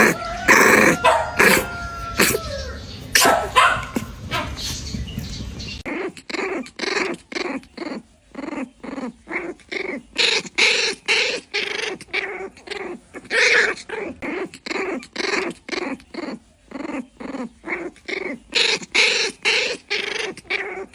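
Puppy barking over and over, settling from about six seconds in into a steady string of short barks, about two to three a second.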